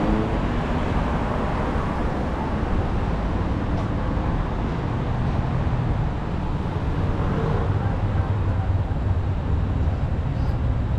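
City street ambience: steady road traffic with passers-by talking.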